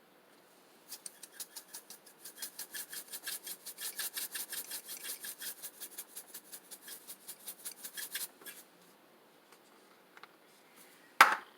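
Pepper grinder being twisted to grind black pepper: a fast, even run of rasping strokes, about five or six a second, lasting several seconds. A brief sharp knock comes near the end.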